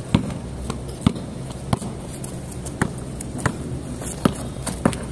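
Basketball being dribbled on an outdoor concrete court: about eight sharp bounces in an uneven rhythm, roughly two a second.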